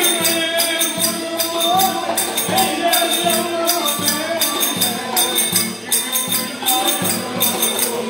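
Black Sea kemençe (small upright bowed fiddle) playing a lively folk melody over a steady beat struck on a large davul drum.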